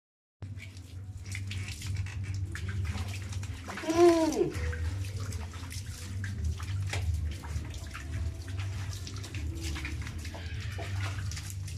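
Water splashing and sloshing as a wet, soapy dog's coat is scrubbed by hand, with scattered small splashes and drips. About four seconds in, one short falling cry stands out as the loudest sound.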